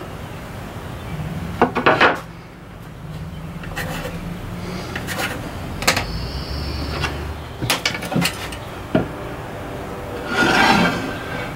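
Cherry board knocked and shifted on a wooden workbench, then light pencil scratching and taps. About ten seconds in, a single stroke of a metal hand plane shaves the board's edge.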